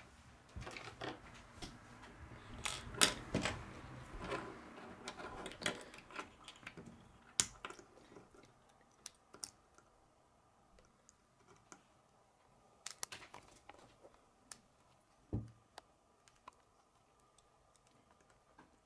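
Plastic K'nex rods and connectors clicking and snapping together as they are handled and fitted, busiest with rustling in the first six seconds, then scattered single clicks. A dull knock about fifteen seconds in.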